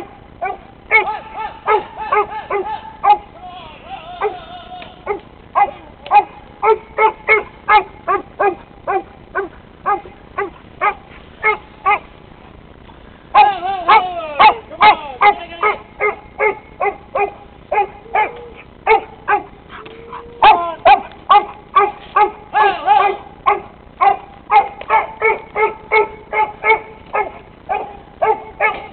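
Working sheepdog barking over and over while driving sheep, about two barks a second, with a short break a little before the middle.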